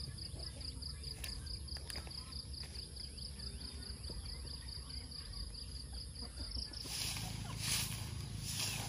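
Cricket chirping in a rapid, even string of high pulses, stopping near the end. After it stops, a few short rasping, hissy bursts follow, over a steady low rumble.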